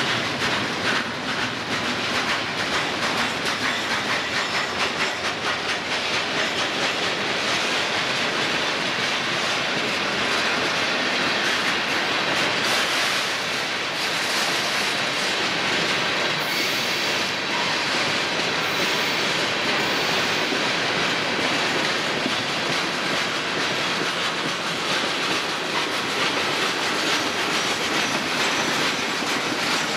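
Freight cars rolling past: a steady rumble and clatter of steel wheels over the rails, with a few faint, brief high squeals from the wheels about halfway through.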